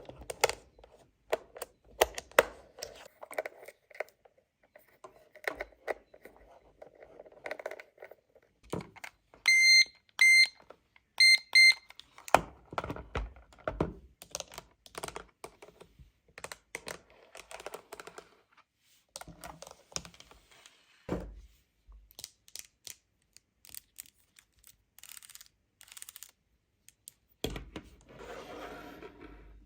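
Toy cash register and small plastic items being handled: scattered plastic clicks and taps, with four short high electronic beeps in two pairs about ten seconds in. Near the end, a couple of seconds of rustling.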